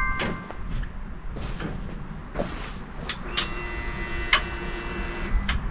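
A click, then a faint steady whir for about two seconds that stops, followed by another click. This is the Harley-Davidson Street Bob 114's fuel pump priming as the ignition is switched on, before the engine is started.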